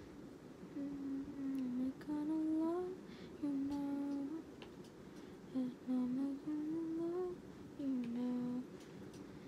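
A young woman humming a tune to herself: a series of held notes that step and slide up and down, with short breaks between phrases.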